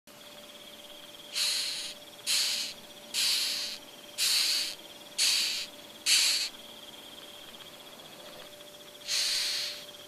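Beetle sound effect: a run of short, harsh hissing rasps, six about a second apart and one more near the end, over a steady, high, fast-pulsing insect trill.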